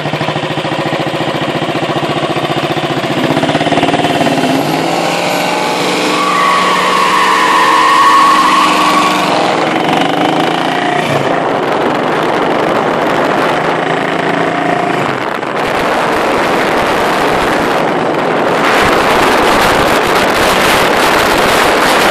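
Chevrolet Nova SS engine running and accelerating away, its note rising in pitch over the first several seconds. From about two-thirds of the way through, steady wind noise on the microphone takes over.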